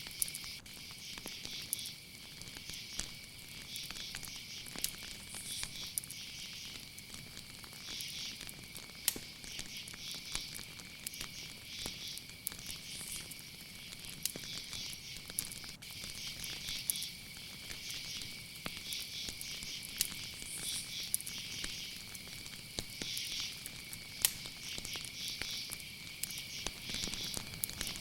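Night insects, crickets, chirping: a steady high trill under repeated pulsing chirps about once a second. Scattered sharp crackles of a fire run through it.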